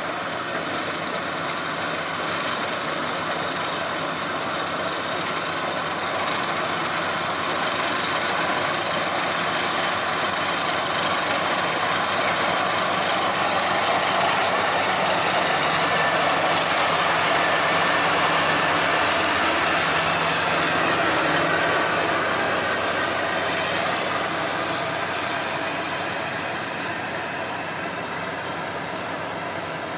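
Crown Sumo rice combine harvester running as it cuts and threshes rice, a dense, steady machine drone of engine and threshing works. It grows louder as the machine comes close, is loudest a little past the middle, then fades as it moves away.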